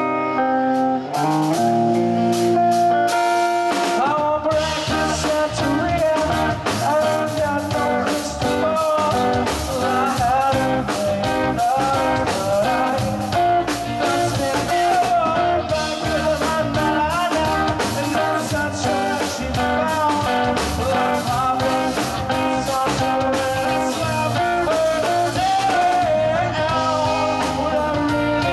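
Live rock band playing amplified electric guitars over a Pearl drum kit, the texture filling out about four seconds in.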